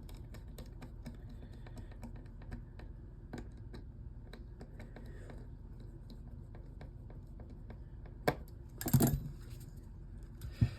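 Light scattered clicks and taps of small smartphone parts and screws being handled during reassembly, with a louder clatter about nine seconds in.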